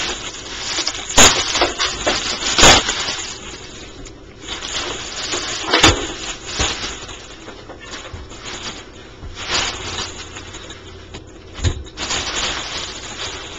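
Heavy cardboard-and-plastic packaging being cut and pulled apart by hand: irregular rustling, scraping and tearing, broken by several sharp cracks.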